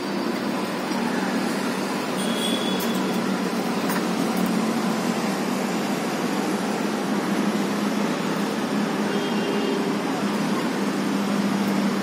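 Steady rumble of city road traffic. Two faint, brief high tones sound over it, once about three seconds in and again near nine seconds.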